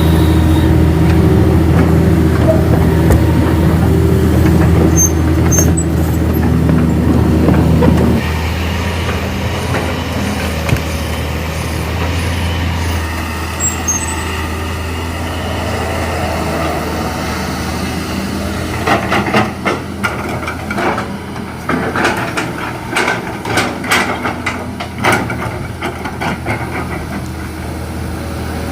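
Excavator's diesel engine running steadily, louder for the first eight seconds or so, then easing off. Later comes a run of sharp clanks and knocks, several per second, over about seven seconds.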